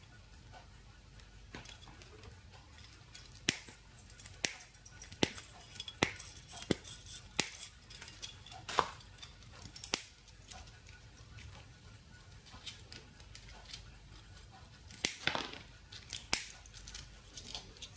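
Small hand snips cutting away the base of a nixie tube, each closing of the jaws giving a sharp snap or click. There are roughly one a second for about the first ten seconds, then a pause, then a few more near the end.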